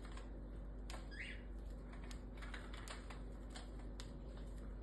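Cockatiel cracking millet seeds with its beak: faint, irregular small clicks, with one short rising chirp about a second in.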